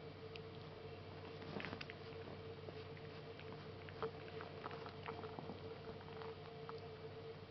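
Faint scuffling with scattered soft taps as a Savannah kitten wrestles and paws at an adult cat's tail on a bedsheet, over a steady faint hum.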